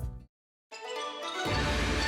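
Background music: one track fades out, there is a brief silence of under half a second, and a new track starts softly and fills in about a second in.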